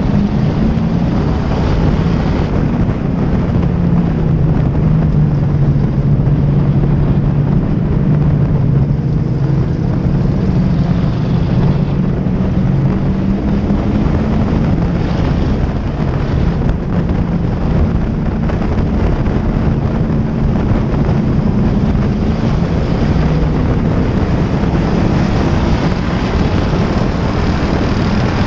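Pure stock race car's V8 engine running hard at racing speed, heard onboard with wind rushing over the microphone. The engine note stays loud and fairly even, rising and dipping a little through the turns.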